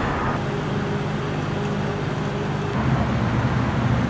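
An engine running steadily, a low hum with a few pitched tones, its note changing to a lower, rougher sound about three seconds in.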